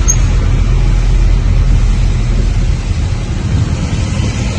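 Steady low rumble inside a car driving on a rain-soaked road, from the engine and the tyres on the wet surface, with a brief high tick just at the start.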